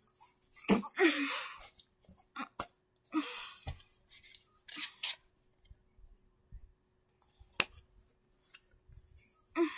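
Handling noise from plush toys and a plastic toy ball: irregular cloth rustles and scrapes with several sharp clicks, the loudest rustle about a second in and a lone sharp click near the end.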